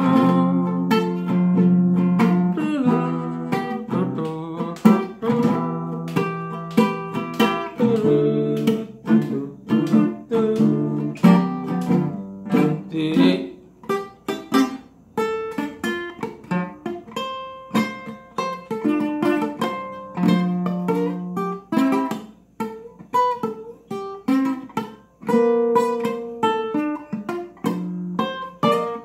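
Solo acoustic guitar playing an instrumental passage of plucked single notes and chords.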